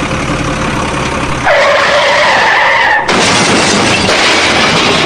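Cartoon vehicle sound effects: an engine running, then a loud tyre screech lasting about a second and a half, followed by a loud hissing rush.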